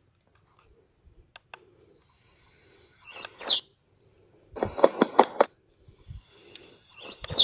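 Recorded Chinese francolin decoy call played loudly from a small E898 portable speaker, in three loud phrases about 3, 5 and 7 seconds in, each a high whistle with a run of rapid harsh notes.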